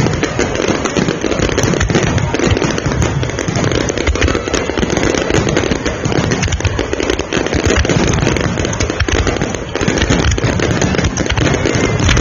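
Finale barrage of a fireworks display: shells bursting in rapid, overlapping succession, their bangs and crackle merging into one unbroken wall of sound.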